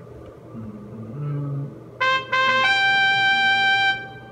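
Trumpet sting, likely an edited-in sound effect: two short notes, then a longer, higher held note, starting about two seconds in and stopping about two seconds later.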